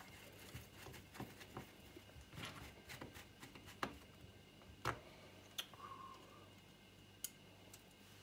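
Faint, scattered clicks and taps of a screwdriver and small parts handled against a plastic radiator housing, the sharpest about four and five seconds in, with a brief squeak just after six seconds.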